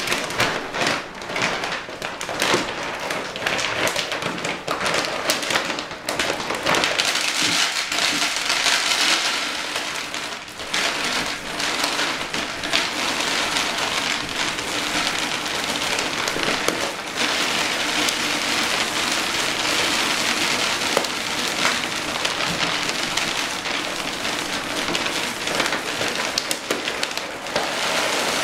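Dry dog kibble pouring from a large bag into a plastic storage bin: a continuous rattling patter of pellets, with the bag crinkling.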